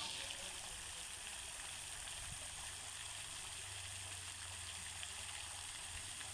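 Pool fountain jets spraying water into the air, the spray falling back onto the pool surface in a steady hiss.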